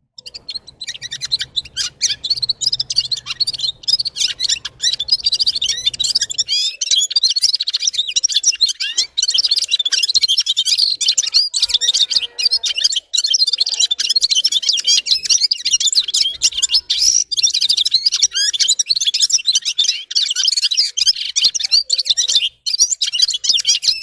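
Red-fronted serin singing a long, continuous high-pitched twittering song of rapid trills and warbles, starting just after the opening with only brief breaks.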